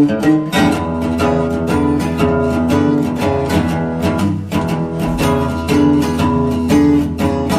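Background music played on guitar: plucked and strummed notes over a sustained bass line, with a steady beat.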